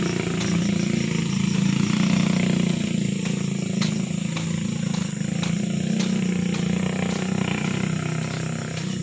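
Motorcycle engine running steadily at low, even revs.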